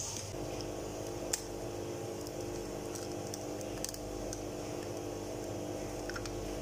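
Eggs being cracked by hand into a plastic bowl: a few sharp clicks of eggshell breaking, under a steady hum.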